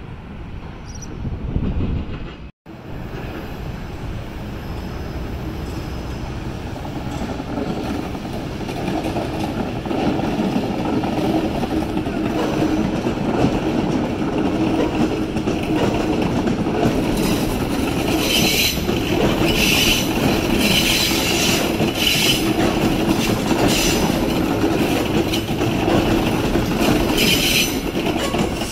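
Passenger train running through the station, its rumble building over the first ten seconds, with repeated high-pitched wheel squeals in the second half. The sound cuts out for an instant about two seconds in.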